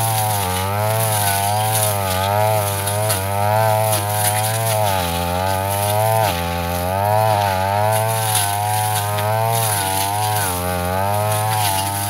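Backpack brush cutter engine running under load while its blade cuts grass. The engine pitch rises and falls about once a second as the blade bites and is swung, and sags deeper twice around the middle.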